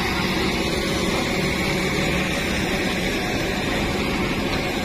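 A heavy diesel truck engine idling steadily, with rain falling.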